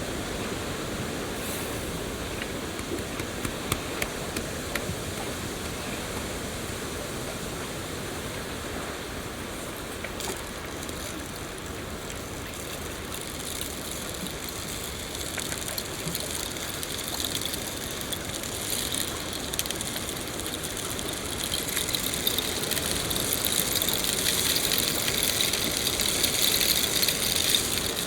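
Rain falling in a forest: a steady hiss with scattered sharp drop ticks, growing louder and brighter over the second half.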